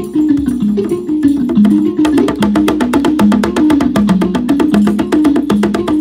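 Live percussive music: a low melodic instrument repeats a stepping pattern of short notes. About two seconds in, a rope-tuned hand drum joins with fast, crisp strokes.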